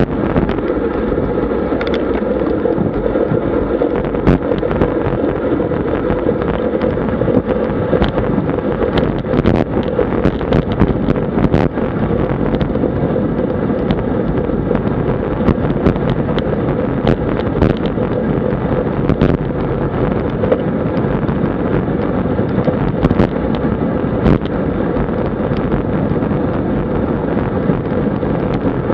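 Wind rushing over a bike-mounted action camera's microphone on a road bike at about 45–50 km/h, a steady rumbling noise, with scattered sharp clicks and knocks throughout.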